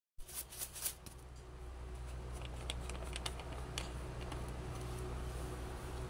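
Plastic screw cap twisted off a bottle and handled: a quick run of sharp clicks in the first second, then scattered light ticks, over a steady low hum.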